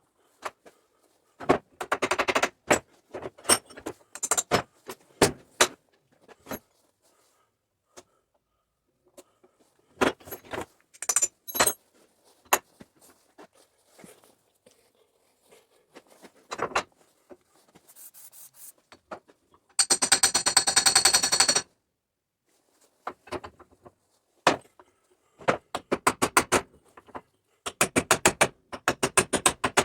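Repair work on metal: scattered clicks, clanks and scrapes, with several bursts of rapid rattling clicks. The longest and loudest burst lasts about two seconds, a little past two-thirds of the way through.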